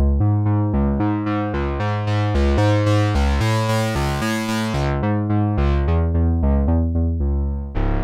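Behringer Pro-800 analog polyphonic synthesizer playing a bass patch: quick repeated bass notes, about four a second. The filter cutoff is turned up so the tone brightens through the middle, then is turned back down. Just before the end a brighter, fuller sound takes over.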